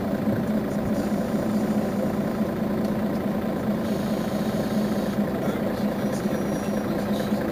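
Mercedes-Benz Citaro Facelift city bus standing with its engine idling: a steady, even hum.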